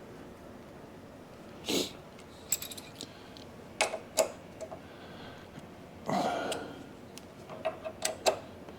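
Scattered metallic clicks and clinks as a tap is fitted and tightened in a chuck, with two short rustling scrapes about two and six seconds in.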